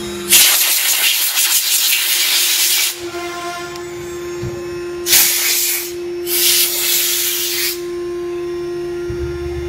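CNC router running on aluminium composite panel, its spindle giving a steady whine, broken by loud hissing: one long burst near the start and two shorter ones a little past the middle.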